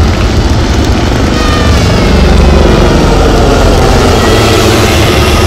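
HAL Dhruv helicopter flying close overhead: loud, steady noise from its four-blade main rotor, with a thin whine from its twin turboshaft engines above it.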